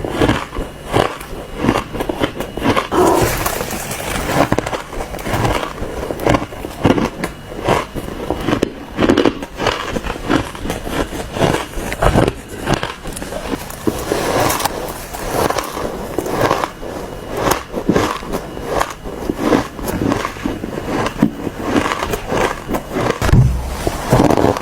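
Ice being bitten and chewed: a dense, irregular run of crunches and cracks.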